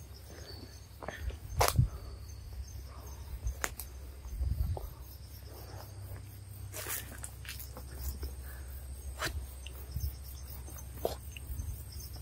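Insects chirring steadily in the background, with scattered short knocks and rustles and a low steady rumble. The sharpest knock comes a little under two seconds in and another near seven seconds.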